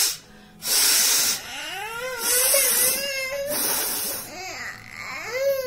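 A woman sneezing several times in a row, each sneeze a short high-pitched rising intake of voice followed by a hissing burst of breath.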